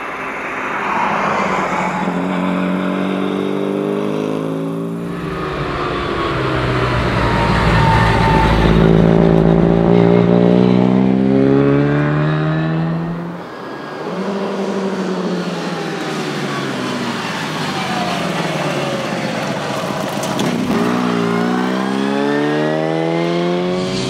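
Austin A30 rally car's engine revving hard at speed, its pitch climbing again and again and dropping back at each gear change or pass. There are sudden breaks about five and thirteen seconds in.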